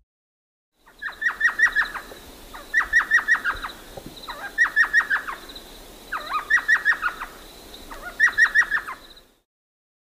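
Elf owl calling: five bursts of quick, high yelping notes, five or six notes to a burst, repeated about every two seconds.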